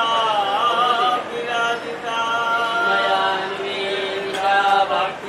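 Hindu devotional chant sung in long, held melodic notes.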